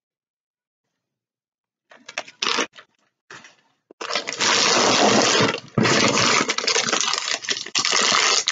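Near silence for about two seconds, then a few short crinkles. From about four seconds in comes loud, continuous crinkling of plastic sweet packaging handled close to the microphone.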